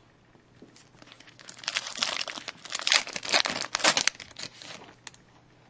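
Foil wrapper of a hockey card pack crinkling and tearing as it is ripped open: a dense crackle that builds about a second in and dies away near the end.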